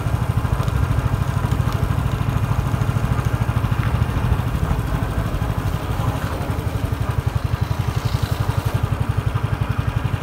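Vehicle engine running steadily on the move, with a fast, even low pulsing.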